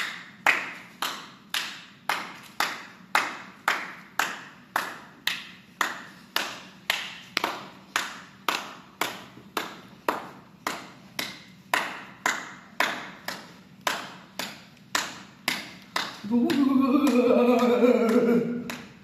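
Steady rhythmic striking, a little under two sharp blows a second, each ringing briefly. Near the end it gives way to a loud, drawn-out wavering call lasting about three seconds.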